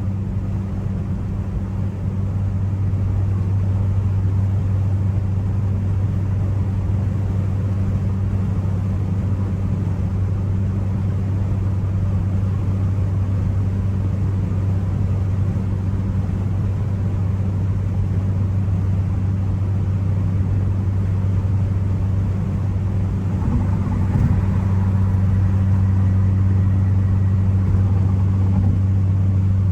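Turbocharged Ford Focus ST engine running at a steady drone while driving, with a low hum that holds one pitch. About three-quarters of the way through it swells slightly and a faint high whistle comes in for a few seconds.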